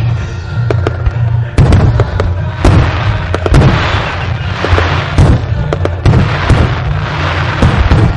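Aerial fireworks shells bursting in quick succession, a run of sharp bangs with stretches of crackling glitter in between, over a steady low rumble.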